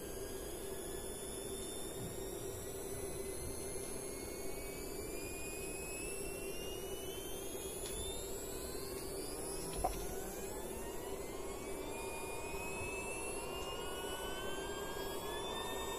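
Stepper motor run by an Allegro driver, whining with several tones that slowly and steadily rise in pitch over a constant lower hum. There is one small click about ten seconds in.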